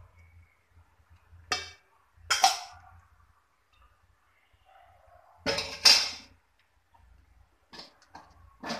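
Metal spoon clattering against a stainless steel pot as cooked rice is layered in: four separate clinks and scrapes, the loudest a little past the middle.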